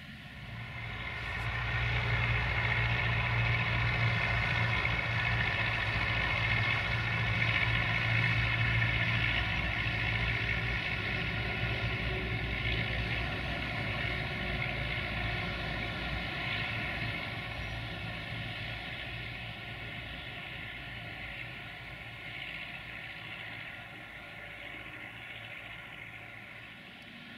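Diesel engines of a Universal U650 tractor and a truck driving along a road. The engine sound swells in about a second in, is loudest over the first ten seconds, then slowly fades.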